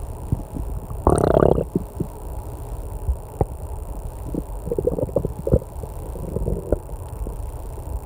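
A person's stomach growling: a loud gurgling rumble about a second in, then a run of smaller gurgles through the middle, over the steady low hum of an air conditioner.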